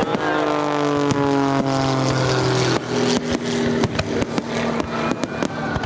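A fireworks display with many aerial shells bursting in quick succession, sharp cracks and bangs. Under them runs a sustained droning tone that slides slowly lower, then shifts pitch about three seconds in.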